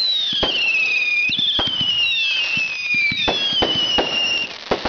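Fireworks going off: a run of high whistles, each sliding down in pitch over a second or so and overlapping the next, with sharp pops and cracks among them.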